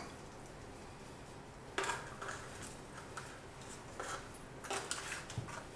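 Faint clinks and scrapes of metal tongs against an aluminium foil roasting pan and the oven rack, a few scattered sounds starting about two seconds in.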